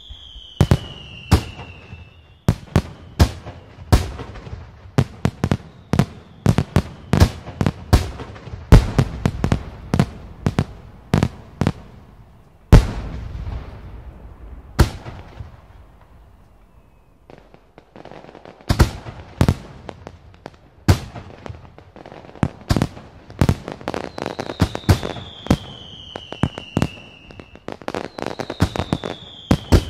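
Fireworks display: rapid sharp bangs and crackle, several close together, with a lull of a few seconds midway. A few high whistles fall in pitch near the start and again near the end.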